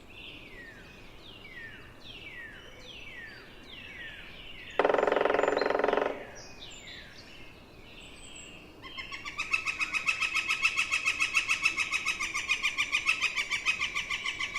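Northern flicker: a loud drum roll on wood lasting just over a second, then its long, fast, even 'wick-wick-wick' call series running for several seconds. A run of high, down-slurred bird notes repeats through the first few seconds.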